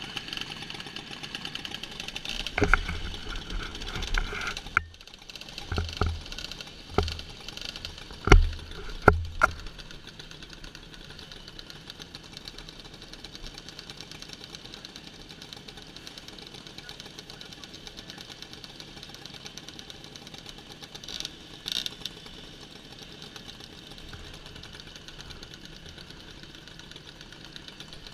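Moped engines idling with a rapid, fine putter. Between about two and ten seconds in come several loud, sharp knocks and bumps close to the microphone.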